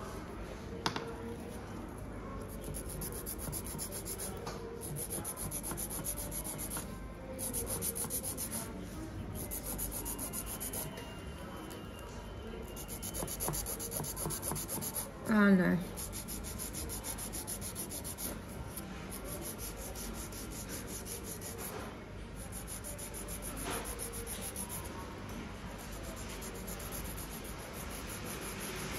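A nail file rubbing back and forth on fingernails in quick, continuous strokes, pausing briefly every few seconds. A short voice-like sound cuts in about halfway through.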